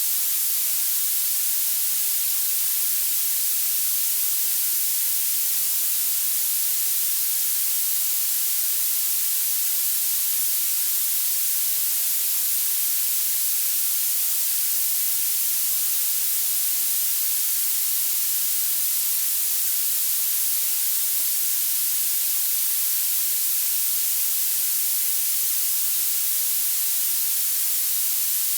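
Violet (purple) noise: a steady generated hiss, its energy weighted heavily toward the highest pitches, with almost no bass.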